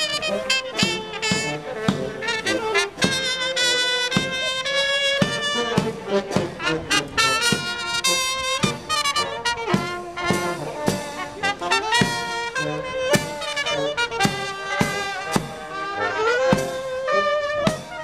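Marching brass band playing a tune on trumpets and saxophone, over a steady drum beat.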